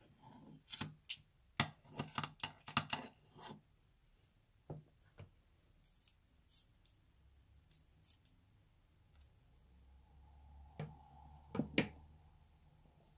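Metal scissors snipping at the rubber tail of a glue-filled snake balloon: a quick run of sharp clicks and snips in the first few seconds, then a few scattered clicks. Near the end come a couple of louder clicks as the balloon is squeezed and glue comes out.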